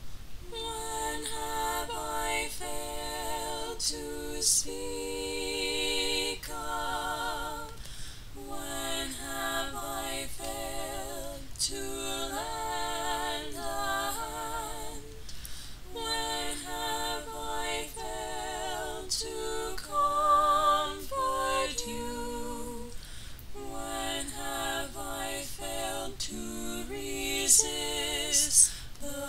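A woman singing unaccompanied, her held notes wavering with vibrato, in phrases broken by short pauses.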